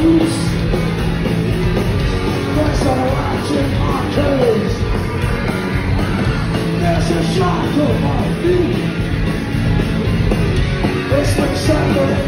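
Loud live punk rock band playing through amplifiers, a dense wall of distorted sound with a voice yelling over it, heard from inside the crowd.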